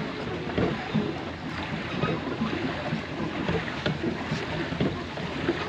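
Pedal boat being pedalled, its paddlewheel churning and splashing water in an uneven run of swishes, with a few light knocks.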